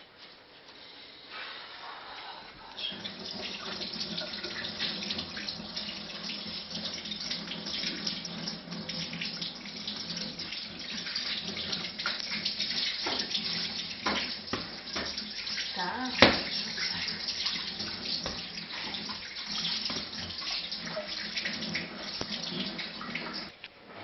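Water running from a kitchen tap into a sink, turned on about three seconds in and off just before the end, with a few knocks and one sharp clack about two-thirds of the way through.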